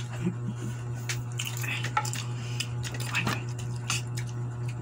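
Spoons and forks clicking and scraping against a bowl and plates as people eat, in many short irregular clinks over a steady low hum.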